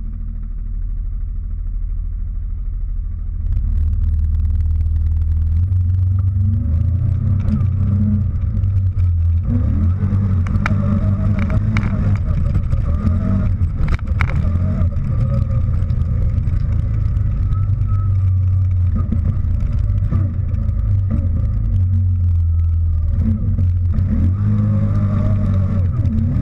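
CFMoto Gladiator X8 ATV's V-twin engine idling, then opening up about three and a half seconds in as the quad drives off across grass, its note rising and falling with the throttle. Scattered knocks come as clods of turf fly up around it.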